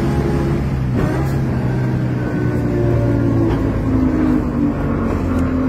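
Tram in motion: a steady low hum and rumble of motors and wheels on the rails, with a click about a second in.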